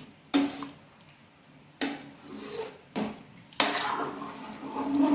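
Metal ladle stirring curry in an aluminium cooking pot: four sharp clanks of the ladle against the pot's side, each ringing briefly, then a longer stretch of stirring and scraping through the gravy from about three and a half seconds in.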